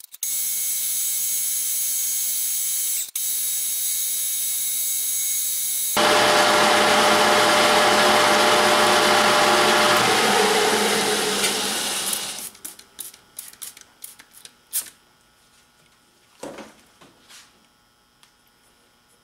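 Metal lathe spinning a drill-rod bar while a knurling tool's wheels roll a diamond knurl into it: a steady high whine that turns louder and rougher about six seconds in. The sound dies away around twelve seconds, leaving a few faint clicks and knocks.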